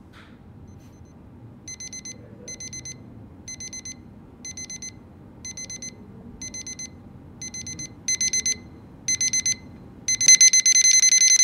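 Electronic alarm beeping in short trilling bursts about once a second. The bursts come faster about eight seconds in and run together into one continuous high beep near the end: a bomb's countdown.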